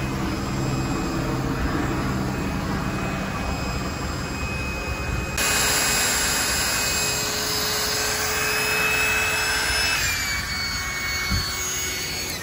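Small 12-volt electric air pump, run from the car's cigarette-lighter socket, whining steadily as it inflates a vinyl air cushion. It gets louder about five seconds in, and its pitch dips slightly near the end.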